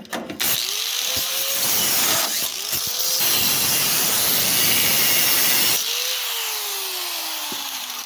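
Angle grinder with a cutting wheel starting up and grinding through an electrical wire inside a microwave, throwing sparks. About six seconds in it is released and the motor winds down, its whine falling steadily in pitch.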